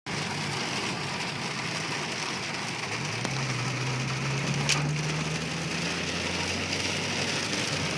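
Heavy downpour of rain: a steady, even hiss of rain falling on surfaces. A single sharp tap about halfway through, and a low hum that rises in pitch and then holds steady from about three seconds in.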